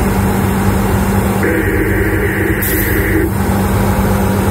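Steady diesel engine rumble of EMD SD40-2 locomotive 3098, moving slowly past at close range. About a second and a half in, a higher sustained sound joins for about two seconds, with a short hiss near its end.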